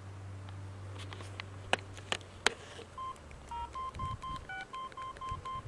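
Mobile phone keypad beeps as keys are pressed to type a text message: a run of short beeps, mostly at one pitch with an occasional higher or lower one, several a second, starting about halfway in after a few sharp clicks.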